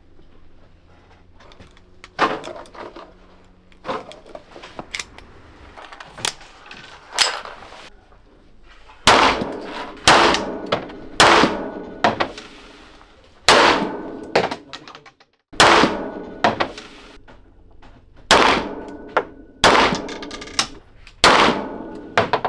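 Laugo Arms Alien 9 mm pistol firing single shots. After a few fainter sharp cracks in the first half, about fourteen loud reports come in short strings, roughly one every 0.6 to 1 second, each with a short echo.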